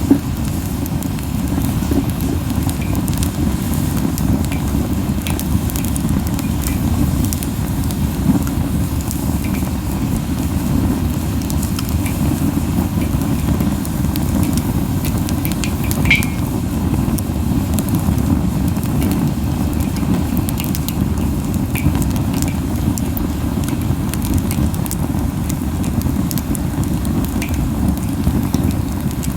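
Camellia wood burning hot in a fire pit: a steady, low puffing of strong flames under scattered crackles and pops, with one louder pop about halfway through.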